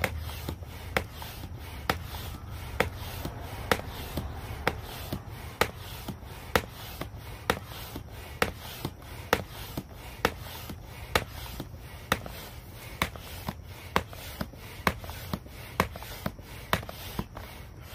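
Stand-up paddleboard hand pump worked in steady strokes to inflate an inflatable truck-bed topper, giving a sharp click or knock with each stroke, a bit under one a second.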